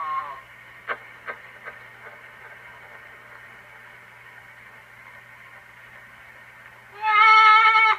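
Edison Standard cylinder phonograph playing back an acoustic recording through its horn: a steady surface hiss with a low hum and a few clicks about a second in, then about seven seconds in a voice comes in loudly on a held note.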